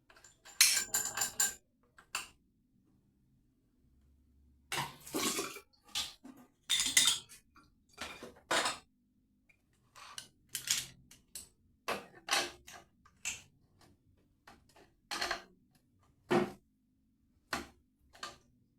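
Irregular metallic clinks, clanks and scrapes of a spanner and tap fittings being handled. They come singly and in short clusters as a dripping tap connection, not tight enough, is undone and worked on.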